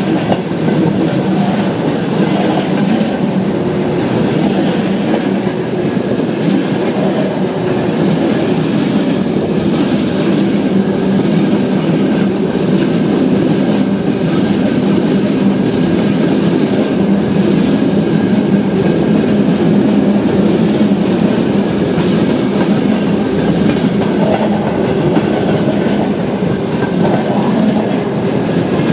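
Train running along the track: a steady rumble of wheels on rails, with the clickety-clack of rail joints.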